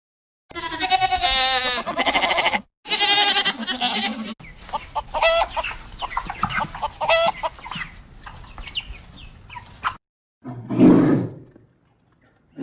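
A run of farm animal calls: two long, wavering calls in the first few seconds, then a chicken clucking over and over for several seconds, then one short, loud, low call near the end.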